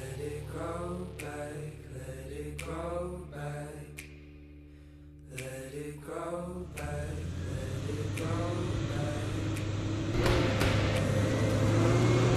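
A song with a singing voice plays for the first six or seven seconds. Then a four-wheel drive's engine comes in and grows louder as the vehicle climbs a steep, rutted dirt track, and it is loudest near the end.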